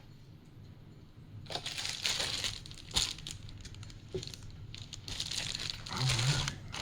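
Packaging crinkling and crackling as a parcel is handled and opened, starting about a second and a half in, with a sharp click partway through.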